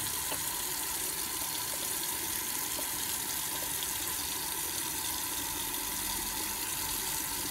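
Water running steadily from a bathroom sink tap into the basin.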